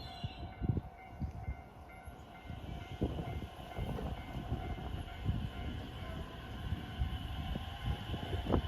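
Train running, with steady whining tones and wind buffeting the microphone in low thumps.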